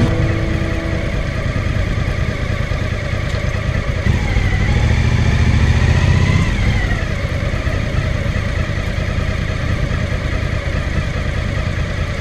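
Suzuki V-Strom 1000's V-twin engine running at low road speed. About four seconds in the revs rise as the bike accelerates, then fall back a couple of seconds later to a steady low-speed run.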